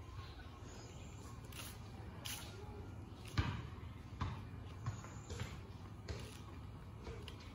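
Slow footsteps on concrete, a soft thud about once a second, the one in the middle the loudest, over a low steady rumble.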